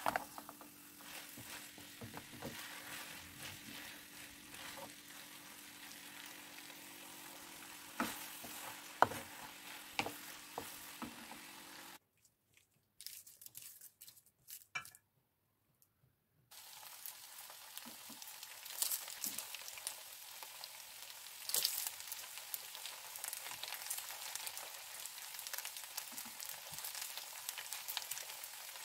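Spaghetti sizzling in a hot frying pan as it is tossed with a wooden spoon, with the spoon clicking and scraping against the pan. Midway there are a few seconds of near silence, then the sizzle goes on with scrapes and taps of a silicone spatula on a metal baking tray.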